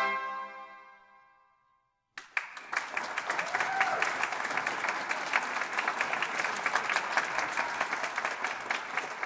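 The trumpet ensemble's final held chord fades away over about two seconds into a moment of silence. Then the audience breaks into applause, which carries on steadily.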